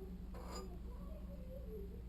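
Steady low hum with a single light click about half a second in.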